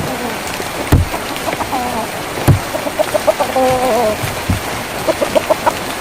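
Steady rain drumming on a tin roof, with heavy drops thudding on it a few times. From about a second and a half in, a chicken clucks in short repeated calls.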